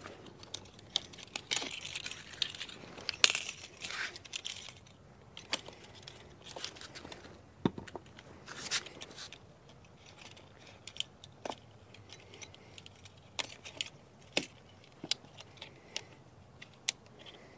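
Gator lock quick-connect hose couplings clicking and rattling as they are pushed on and locked onto the deionizer tank heads, a string of irregular sharp clicks with the loudest a little over three seconds in.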